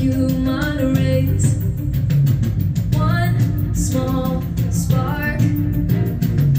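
Music: a song with a singing voice over guitar and a steady beat.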